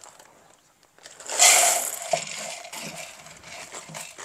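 Dry pasta poured from a bag into hot oil in a clay cazuela, hissing loudly as it hits the oil about a second in, then sizzling more softly while a wooden spoon stirs it with a few light knocks.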